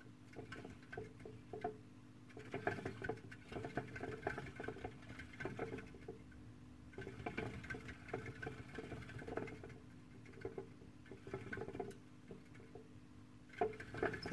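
Syrian hamster in a plastic exercise wheel. The wheel clicks and rattles quickly in bouts of a few seconds, with short pauses between them.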